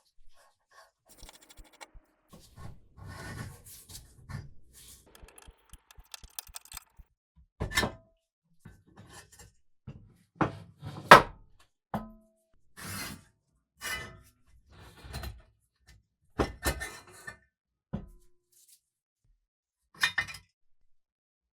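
Metal parts of an antique potato fry cutter being handled: soft scraping and rattling at first, then separate knocks and clinks a second or two apart, the loudest about eleven seconds in.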